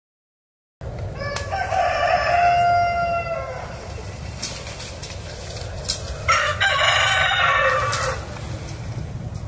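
Rooster crowing twice: a long crow about a second in, ending on a held note, and a second crow a few seconds later.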